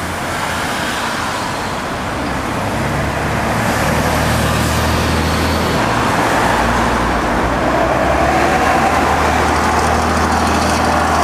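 Road traffic with diesel double-decker buses and cars passing close. A steady engine drone grows louder from about four seconds in as a bus draws near and goes by.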